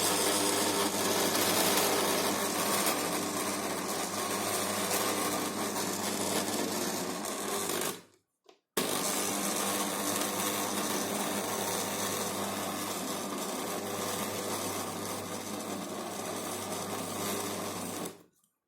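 Electric food chopper's motor running steadily as it kneads atta dough that is turning stiff. It stops about eight seconds in, starts again under a second later, and cuts off near the end.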